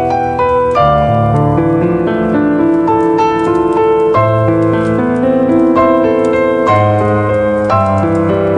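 Slow, gentle piano music, notes and chords following one another steadily.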